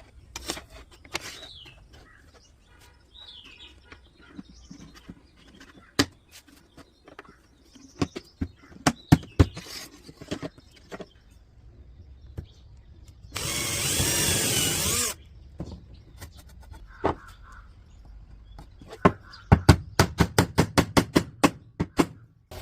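Woodworking on a handmade wooden photo frame: scattered sharp taps and knocks, a power drill running for about two seconds just past the middle, then a quick run of about a dozen sharp taps near the end.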